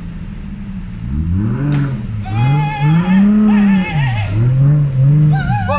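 The Toyota 1JZ inline-six swapped into a Daihatsu Rocky, idling and then revved up and down several times in long swells. A higher wavering tone rides over the revs in two stretches.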